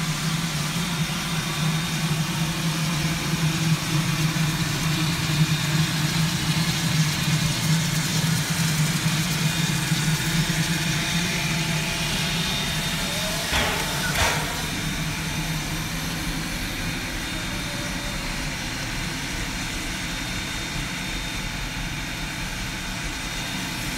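Shay geared steam locomotive standing with steam up: a steady hiss of escaping steam over a low hum, the hum fading out about 17 seconds in. A brief squeal rises and falls in pitch about 13 seconds in.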